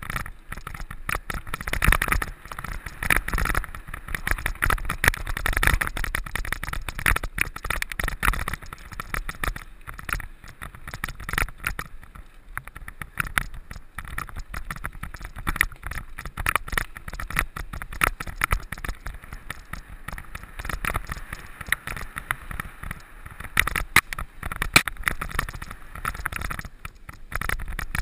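Mountain bike ridden over rough ground: a dense, irregular clatter of knocks and rattles from the tyres and bike, louder in stretches.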